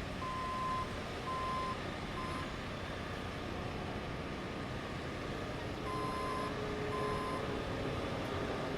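Backup alarm on a construction vehicle beeping about once a second, three beeps early and two more later, over steady site noise.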